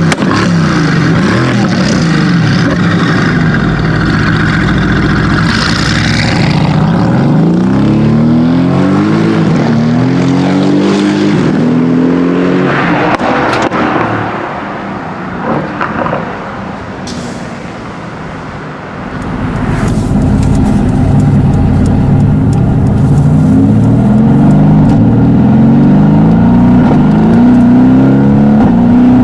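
Tuned Mercedes-AMG GT S's twin-turbo 4.0-litre V8 accelerating hard, its pitch rising and dropping back over and over as it pulls through the gears. It goes quieter for a few seconds around the middle, then accelerates through the gears again.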